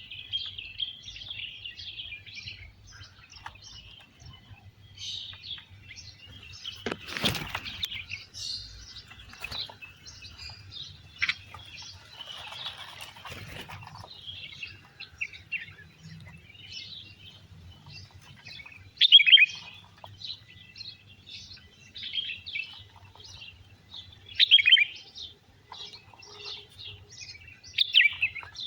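Many wild birds chirping continuously in quick short notes, with a few louder, sharper calls in the second half and a brief rustle about seven seconds in.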